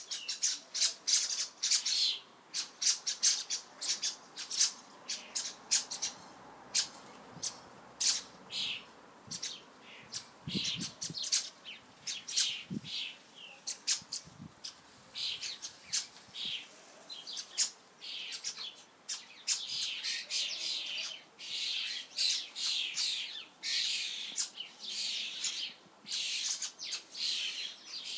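A flock of common starlings, fledglings among them, calling: a dense, unbroken run of harsh squawks and chirps, one after another.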